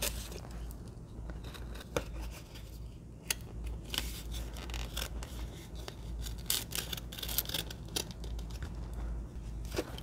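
Scattered scrapes, clicks and rustles of a stiff, plasticized black cardboard box being handled and fitted onto a sensor bracket.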